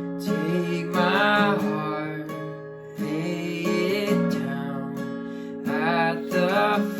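Acoustic guitar strumming chords for a worship song, with a singing voice in short phrases about a second in and again near the end.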